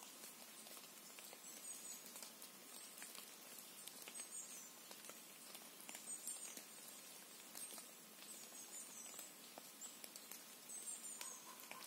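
Very quiet forest ambience: faint, high-pitched chirps recur every one to two seconds over a soft hiss, with scattered light ticks.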